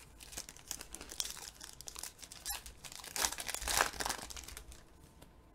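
Foil trading-card pack wrapper being torn open and crinkled by hand, an irregular run of crackles that is loudest about three to four seconds in, with one sharp snap about halfway through.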